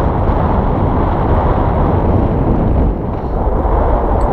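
Strong wind blowing across the camera's microphone: a loud, steady rumble with no distinct events.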